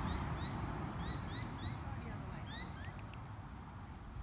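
Small birds chirping: many quick, high rising chirps repeating over and over, over a low rumbling noise.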